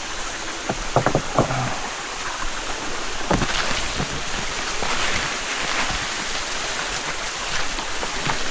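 Stream water rushing steadily, with a few sharp knocks or splashes about a second in and again a little past three seconds.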